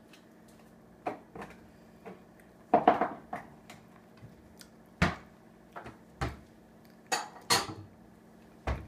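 Dishes and cutlery clinking and knocking on a kitchen table: about ten short, sharp clinks scattered irregularly, the loudest a quick cluster about three seconds in.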